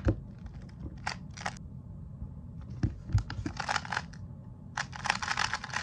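Plastic 2x2 speed cube being turned rapidly by hand: quick runs of clicking, clattering layer turns in short bursts, the longest near the end.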